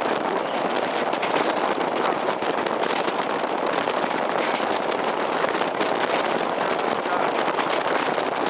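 A PKP TLK passenger train running at speed: a steady rush of noise with a dense, rapid rattling clatter, heard from the train's window.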